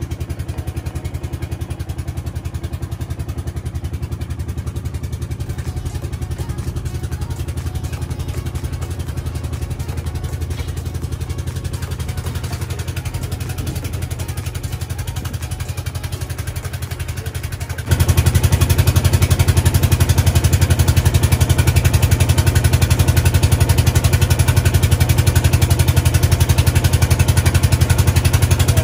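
Motorboat engine running steadily at cruising speed with a fast, even beat. It turns abruptly louder about two-thirds of the way through.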